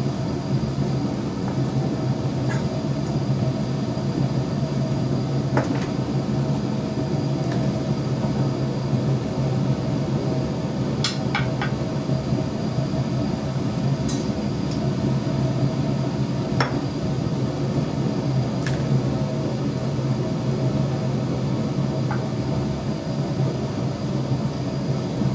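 Steady low machine hum of laboratory equipment running, with a few faint clicks scattered through it.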